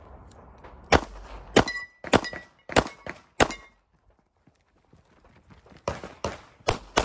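Pistol shots in two quick strings: five shots about half a second apart, a pause of about two seconds, then four more fired faster near the end.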